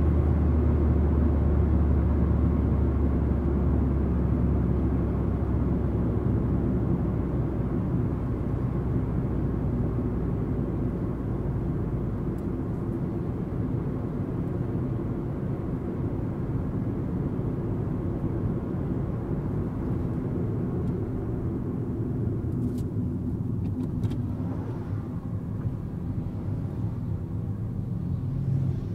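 Car driving at road speed on a country road: steady rumble of tyres and engine with wind noise, with a deep drone in the first several seconds that fades away. Near the end an oncoming motorcycle passes by.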